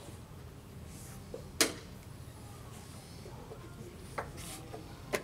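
Sharp clicks of blitz chess play: one loud knock about a second and a half in, then two fainter ones near the end, the sound of wooden pieces set down on the board and the chess clock's button being pressed.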